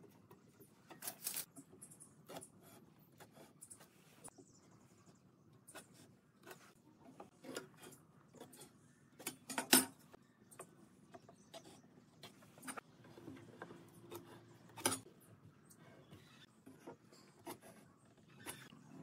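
Scattered light clicks, taps and scrapes of hand tools handled on a wooden workbench while a pine board is measured and marked: a steel tape measure, a metal try square and a pen. The loudest is a sharp knock about ten seconds in.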